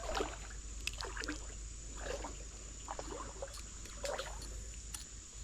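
Legs wading through creek water, sloshing and splashing about once a second.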